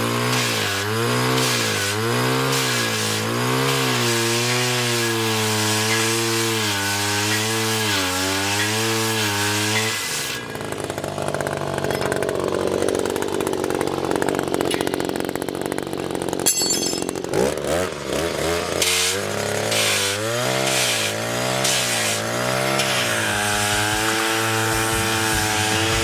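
Power sharpener grinding the teeth of a forestry mulcher; its motor pitch keeps dipping and recovering as it is worked up and down against each tooth. About halfway through it gives way to a rougher grinding hiss, then the motor tone rises quickly and wavers on as before.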